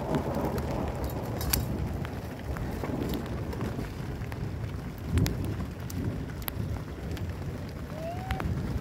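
Rain with a steady low rumble of wind on the microphone and scattered sharp taps of drops. A short rising squeak comes near the end.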